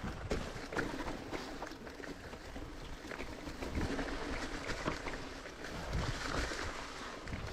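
Mountain bike riding down a dirt singletrack trail: a steady rushing rolling noise with frequent short knocks and rattles as it goes over bumps.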